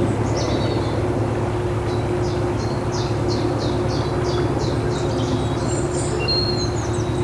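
A narrowboat's diesel engine runs steadily at cruising speed with a constant low hum. Over it a songbird sings a quick run of repeated high notes, about three a second, from around two seconds in until nearly six seconds.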